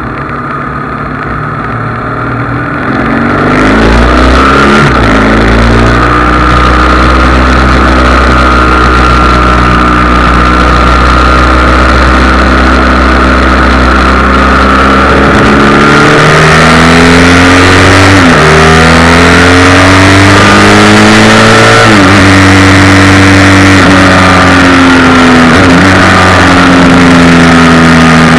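Motorcycle engine pulling away about three and a half seconds in and accelerating through the gears, its pitch climbing and then dropping back at each upshift, several times over.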